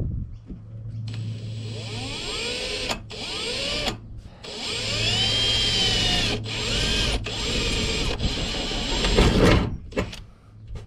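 Electric drill running in several bursts with short breaks between them, the motor's pitch rising as each burst picks up speed. It is drilling a 4 mm pop-rivet hole through the bonnet of a Toyota Hilux, and stops shortly before the end.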